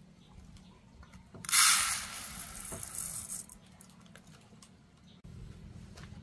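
Dry rice grains poured into a stainless steel pot: a rushing hiss of about two seconds, loudest as the pour begins, then tapering off.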